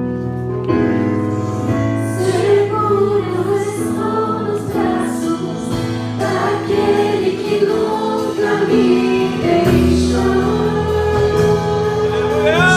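A congregation singing a slow worship song together over long held chords from an accompanying instrument.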